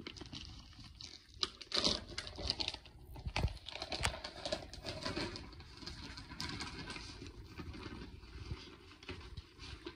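Cat-treat bag rustling and crinkling, with irregular small clicks and taps.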